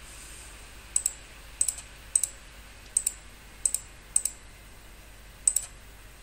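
Computer mouse button clicked about seven times at uneven intervals, each click a quick double tick of press and release, over a faint steady hiss.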